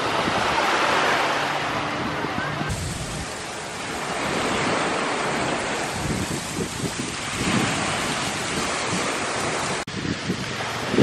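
Small waves washing onto a pebble beach, with wind buffeting the microphone.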